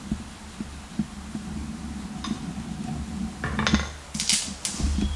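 Small metal clinks and rattles of hand tools and a steel knife being handled and set down on a workbench, over a low hum; the clatter is loudest from about three and a half to five seconds in.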